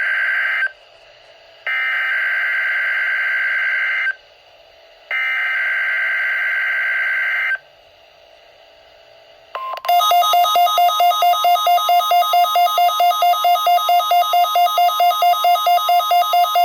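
NOAA Weather Radio sending the SAME digital header for a Required Weekly Test: three buzzy data bursts of about two and a half seconds each, the first already under way, with short pauses between them. About nine and a half seconds in, a steady warning-alarm tone starts, and the Midland WR120EZ weather radio's own alert beeps over it, about four times a second.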